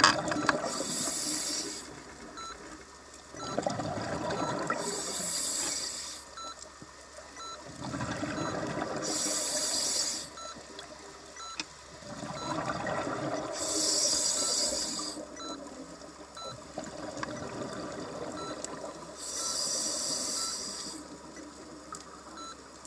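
Scuba diver breathing through a regulator underwater: each breath is a short hiss of inhaled air followed by a burble of exhaled bubbles, five breaths at an even pace.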